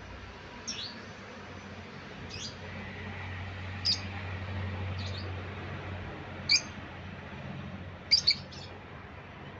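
Yellow lovebird chirping: short, sharp, high-pitched chirps every second or so, with a quick double chirp near the end.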